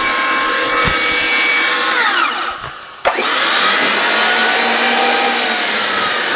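Electric pipe-threading machine running on 2-inch gas pipe. About two seconds in it winds down, its pitch falling away; just after three seconds it starts again with a click, spins back up and runs steadily.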